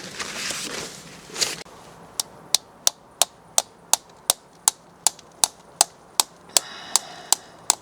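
A brief rustle, then a steady run of sharp, evenly spaced clicks, about three a second.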